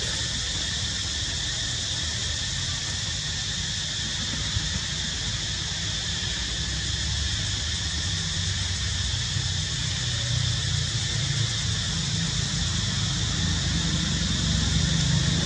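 Steady outdoor background of a constant high-pitched hum with a low rumble underneath that grows louder near the end.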